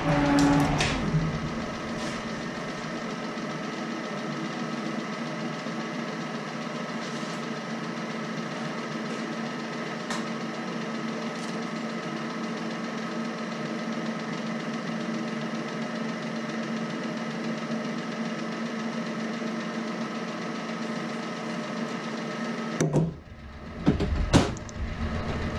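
A century-old metal shaper running with a steady hum, then cutting off suddenly about 23 seconds in, followed by a few knocks.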